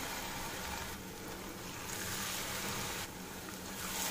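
Hot oil sizzling steadily around grated-potato and cornflour rosti patties shallow-frying in a pan.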